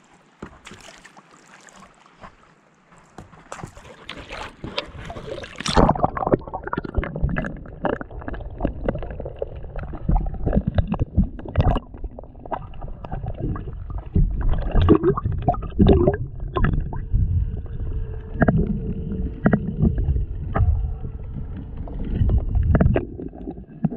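Water splashing near the surface for the first few seconds, then from about six seconds in a muffled underwater rumble and sloshing with irregular knocks, heard from a camera held below the surface.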